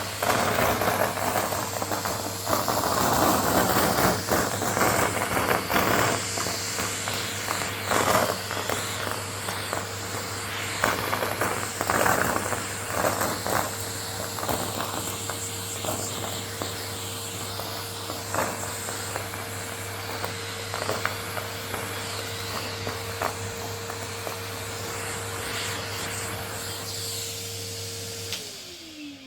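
Vacuum cleaner running while sucking up shredded brown paper, with crackling and rustling of paper pieces going up the hose, heaviest in the first half. Near the end the motor is switched off and its whine falls away as it spins down.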